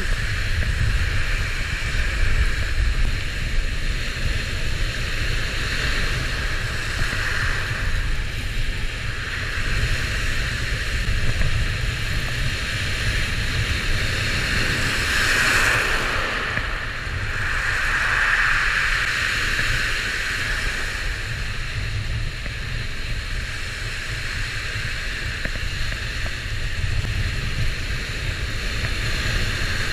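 Surf breaking and washing up a gravel beach, with wind rumbling on the microphone. The wash swells louder about halfway through as a wave breaks close in.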